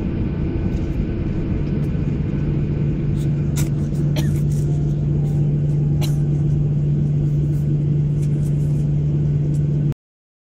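Jet airliner cabin noise while taxiing after landing: a steady rumble with a low engine hum that strengthens a couple of seconds in, and a few light clicks. The sound cuts off suddenly near the end.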